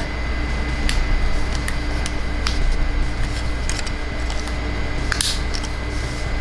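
Scattered small clicks and snaps of plastic toy parts being handled and transformed, over a steady low electrical hum with a faint high whine.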